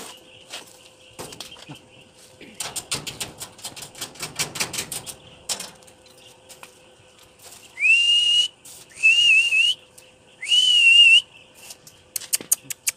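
A run of rapid, irregular clicks or taps, then three loud whistles, each rising at the start and then held with a slight waver for under a second, with short gaps between them. A few more clicks come near the end.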